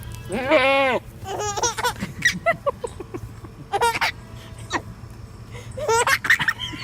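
A baby laughing in several separate high-pitched bursts, the first and loudest a squealing laugh just after the start.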